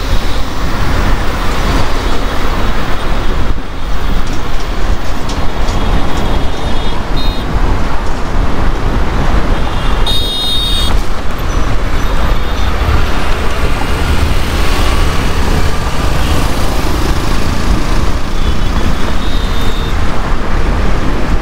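Loud, steady rush of wind and road traffic noise picked up from a moving electric bike, with a vehicle horn sounding briefly about halfway through.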